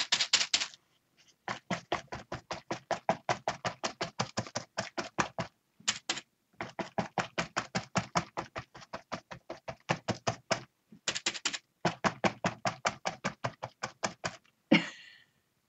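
Sea sponge loaded with acrylic paint being dabbed rapidly onto a paper journal page: quick soft taps at about six a second, in runs of a few seconds with short pauses between.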